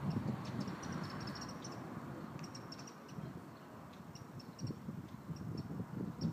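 Outdoor ambience: short runs of quick, high chirps repeating throughout, over a low, uneven rumble that swells at the start and again near the end.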